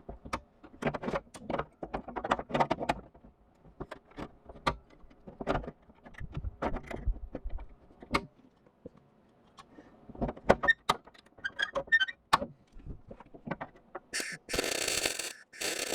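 Sheet-metal parts and tools clanking and clicking while a trunk drop-down panel is fitted for welding, then near the end two short bursts of welding crackle about a second apart.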